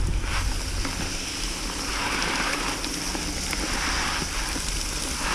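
Garden hose spray nozzle running, water showering steadily onto a plastic tub of live crawdads being rinsed clean, over a low steady rumble.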